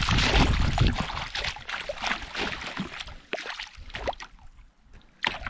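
Water splashing as a hooked brook trout thrashes at the surface beside a canoe, loudest in the first second or so, then scattered plops and drips that die away.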